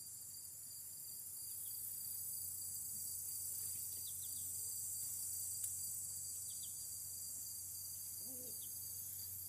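Steady high-pitched chorus of insects such as crickets, with a few faint short chirps scattered through it.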